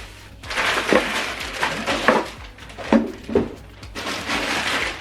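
Handling noise from a soundbar being turned over and moved about: rustling with several light knocks against its plastic back.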